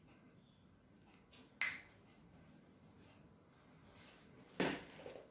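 Two sharp clicks or taps about three seconds apart against faint room tone, the second with a slightly fuller knock.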